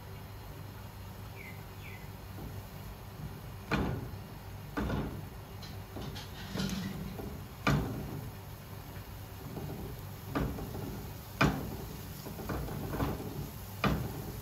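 A silicone spatula stirring diced shiitake mushrooms in a nonstick frying pan: about six sharp knocks against the pan, with scraping and rustling between them, starting a few seconds in. A low steady hum runs underneath.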